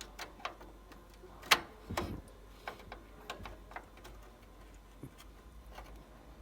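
Irregular clicks and light knocks of a desktop RAM stick being handled and pushed into the motherboard's memory slot, the sharpest click about one and a half seconds in.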